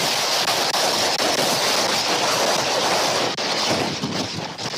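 Strong tropical-storm wind buffeting the eagle-cam microphone, a loud, steady rush of noise.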